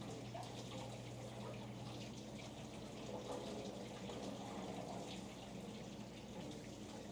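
Water running and splashing steadily into a pond, with a steady low hum underneath.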